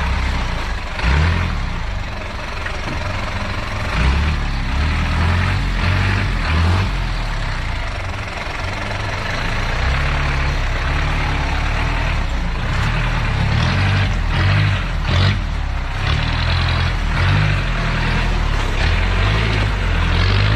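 Off-road 4x4 engine running at low speed, its low rumble rising and falling as the vehicle crawls over a rough trail, with a few knocks from the body and suspension over bumps.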